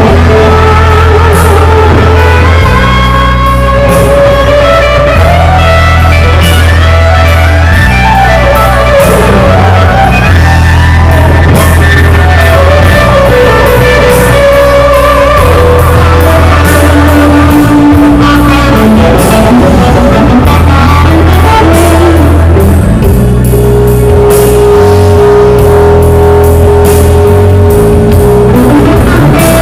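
A rock band plays loudly: an electric guitar plays a lead melody of held notes, some bent in pitch, over bass guitar and a drum kit.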